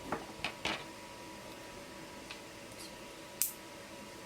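Plastic LEGO Bionicle pieces clicking and rattling as they are handled: a few quick clicks in the first second, faint ones in the middle, and one sharp click about three and a half seconds in.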